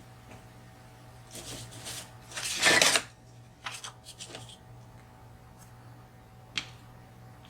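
Hand-handling noises of rummaging through things on a work surface: a few rustling, rubbing scrapes, the loudest just under three seconds in, then a single sharp click near the end.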